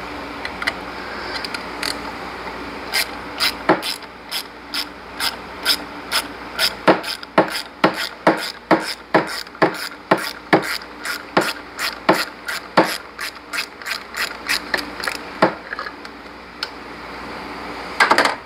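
Hand socket ratchet clicking as it is swung back and forth on a screw, in an uneven run of sharp clicks, about three a second, that starts a few seconds in and stops a couple of seconds before the end.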